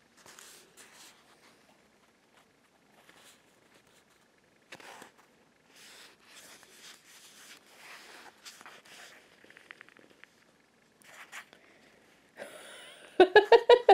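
Soft rustling and scraping of a small cut-out paper tool and fingertips sliding over a paper page, in short scattered strokes. Near the end a person's voice starts with a loud run of quick pulsed sounds.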